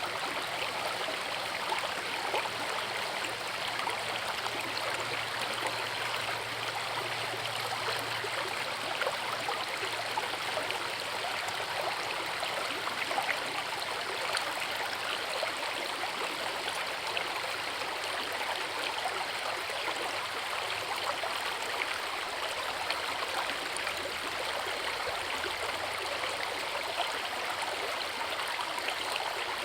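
Forest river spilling over a small waterfall: a steady rush of flowing water, thick with fine splashing.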